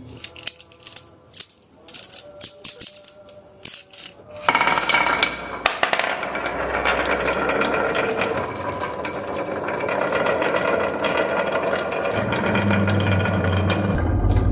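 Marbles clicking and clattering down a marble run: a few separate clicks at first, then from about four and a half seconds in a dense, continuous rattle of many marbles rolling and knocking together.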